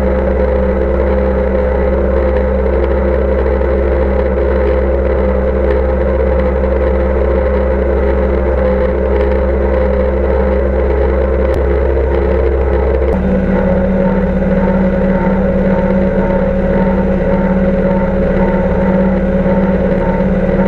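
Deutz D 6206 tractor's air-cooled diesel engine running steadily under load while pulling a Welger AP45 small square baler through hay, with the baler's mechanism working behind it. About two-thirds of the way through, the drone changes abruptly to a different steady pitch.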